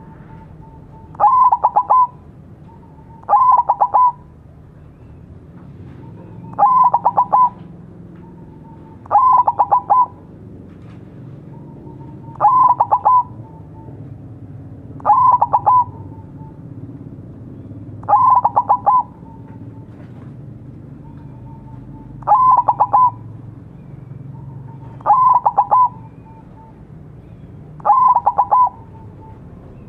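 Zebra dove (perkutut) singing its cooing song: ten phrases, about one every three seconds, each a short soft note leading into a fast stuttering run of coos.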